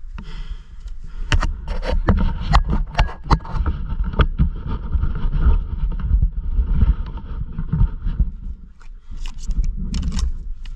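Footsteps crunching and scuffing through deep dry leaf litter, an irregular run of crackles. Wind rumbles on the microphone.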